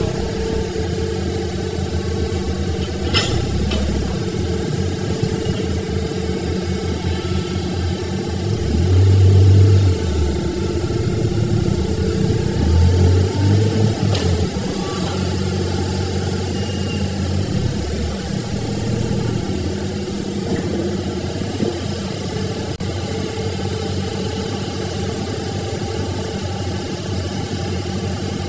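Excavator's diesel engine running steadily as it digs and loads sand into a dump truck, swelling louder twice under load, about nine and thirteen seconds in. A faint sharp knock comes about three seconds in.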